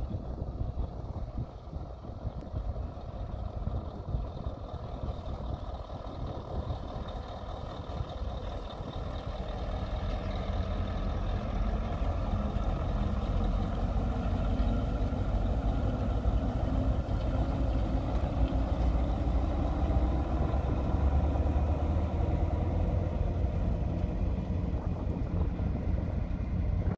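Vintage Mack LJ semi-truck's diesel engine pulling a loaded lowboy trailer, getting louder about a third of the way in as it pulls out and drives past, then running steadily as it heads off.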